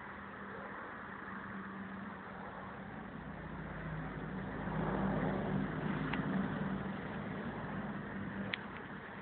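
An engine running with a steady low hum that grows louder about four seconds in and eases off again a few seconds later. A single short click near the end.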